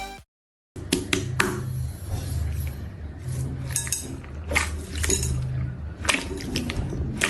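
Slime being squished and stretched by hand, with wet clicks and pops at irregular moments.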